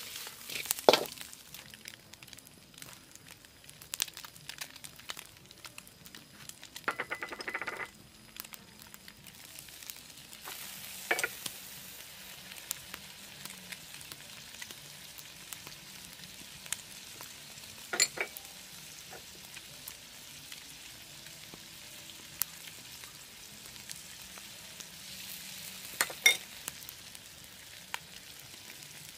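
Lobsters and egg sizzling in a steel wok over a wood fire: a steady frying hiss, broken by a few sharp clicks and a short rougher stretch of noise a few seconds in.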